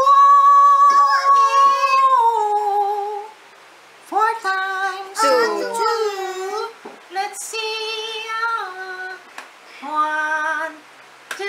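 A high voice singing drawn-out, wavering notes in four short phrases with brief pauses between them.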